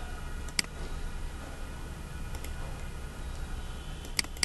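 Sharp computer mouse clicks over a steady low hum and hiss: one about half a second in, a faint one midway, and two in quick succession near the end.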